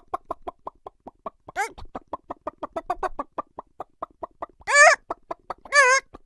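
Chickens clucking in a quick, even run of about six clucks a second, broken by a short squawk about one and a half seconds in and two loud squawks near the end.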